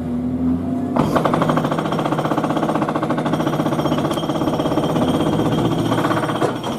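Pneumatic jackhammer on building work, heard indoors through the structure of a flat: a steady hum, then about a second in a fast, even hammering that runs until it stops near the end.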